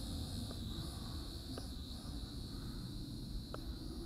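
Protocol Kaptur GPS drone's brushed motors and propellers whining steadily as it lifts off and climbs on its own after takeoff, over low wind rumble on the microphone.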